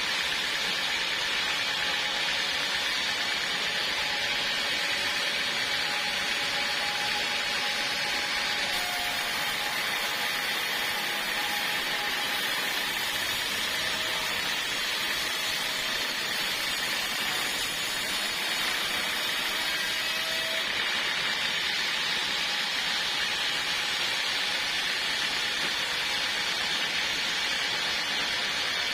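Portable sawmill running steadily through a log, a continuous high rushing noise with no break.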